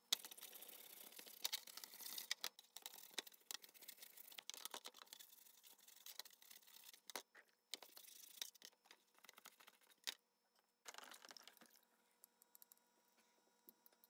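Plastic dish brush scrubbing wet, rusty steel needle-nose pliers in a metal pan: rapid scratchy bristle strokes loosening rust after a vinegar soak. The scrubbing stops about ten seconds in, with one short last burst a second later.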